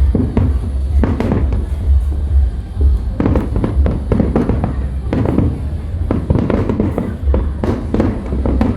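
Aerial fireworks shells bursting in quick, overlapping succession: a continuous run of booms and sharp cracks over a deep rumble, growing denser about three seconds in.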